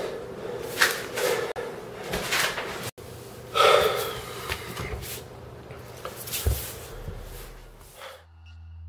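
A distressed man breathing heavily in ragged gasps, with a louder gasp about three and a half seconds in. The sound cuts off abruptly near the end.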